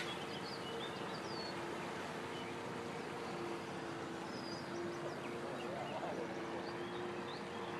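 Fast floodwater rushing steadily through flooded trees along a riverbank, with scattered short bird chirps and a faint steady hum underneath.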